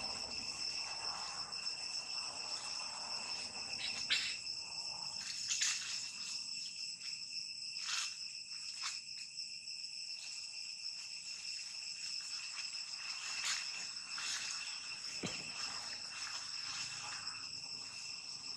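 Steady high-pitched insect drone, held on a few fixed pitches, with a few short clicks here and there.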